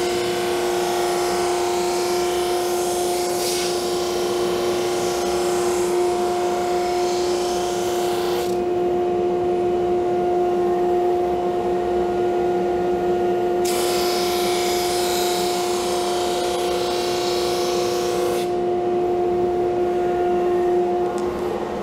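A single-ended drum sander running with a steady hum while hardwood veneer pieces are fed through, the sanding hiss coming and going between passes. The hiss stops about eight seconds in, returns a few seconds later, and stops again near the end.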